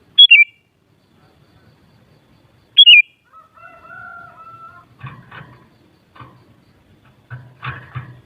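Sooty-headed bulbul (kutilang) singing: two loud, short whistled phrases about two and a half seconds apart. These are followed by a softer, longer held call and some rougher, scratchier calls in the second half.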